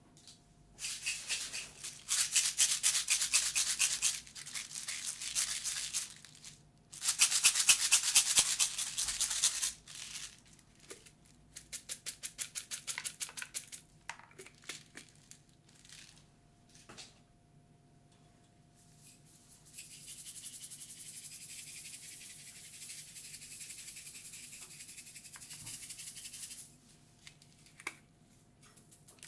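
Small plastic jar of candy beads and sprinkles shaken over a cup of ice cream, rattling in loud bursts of fast shakes. Later comes a longer, steadier rattling hiss of sprinkles tipped from the jar.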